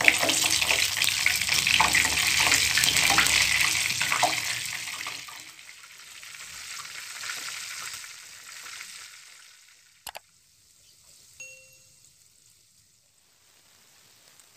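Battered banana pieces sizzling in hot oil in a frying pan over medium heat: a loud, dense sizzle for the first five seconds or so, then fading to a faint sizzle. A single sharp click about ten seconds in, and a short tone just after.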